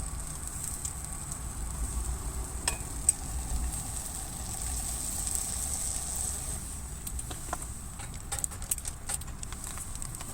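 Campfire burning, crackling with scattered sharp pops over a steady hiss; the pops come thicker about eight seconds in.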